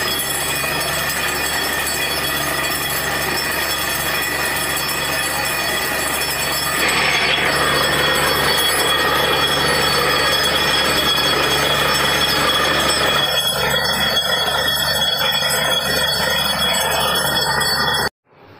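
Borewell drilling rig running steadily, with water blasting out of the casing around the drill pipe: the bore has struck water. The noise grows louder about a third of the way in and cuts off suddenly near the end.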